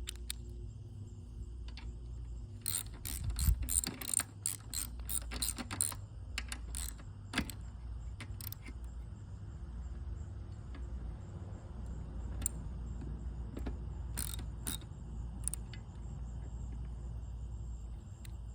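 Socket ratchet wrench clicking in quick runs as a seat-bracket bolt is tightened, with a steady low hum underneath.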